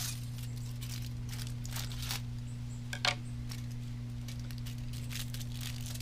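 Crinkling and rustling of thin material being handled and cut with scissors, with irregular sharp snips and clicks, loudest about three seconds in. A steady low electrical hum runs underneath.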